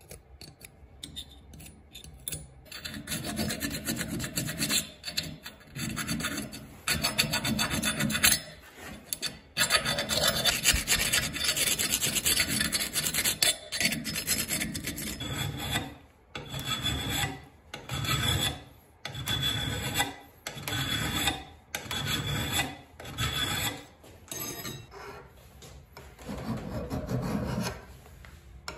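Hand files rasping on the steel of a double-bit axe head clamped in a vise. The strokes come fast and close together through the first half. From about halfway they are separate, slower strokes about one a second, with a flat file drawn along the bit.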